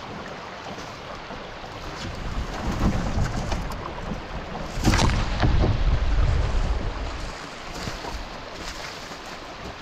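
Small river's rushing water, with low rumbles that swell around the middle and a single sharp knock about five seconds in.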